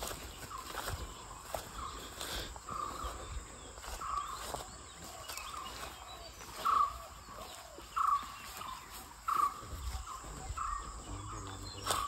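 Repeated wild animal alarm calls, described as strong calls: short, sharp calls at a steady pace of about one every second and a bit, loudest a little past the middle.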